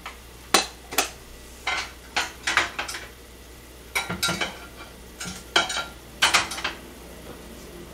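Metal spoon clinking and tapping against dishes as ssamjang is spooned out: about a dozen short, sharp clinks at irregular intervals.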